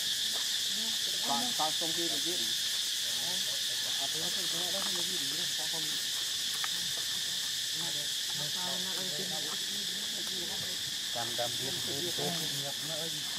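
Insects keep up a steady, high-pitched drone. Fainter, broken calls come and go underneath.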